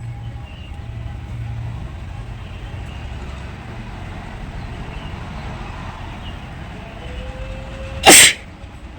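A woman's single loud, short sneeze about eight seconds in, preceded by a brief rising 'ah' as she draws breath. Behind it runs a steady low rumble like road traffic.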